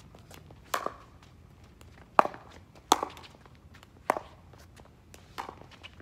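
Pickleball paddles hitting a plastic pickleball back and forth in a rally: five sharp pops about a second apart, with fainter taps in between.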